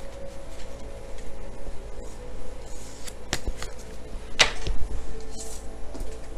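Tarot cards being handled and shuffled off-camera, with a few sharp snaps of the cards past the middle, over faint steady background music.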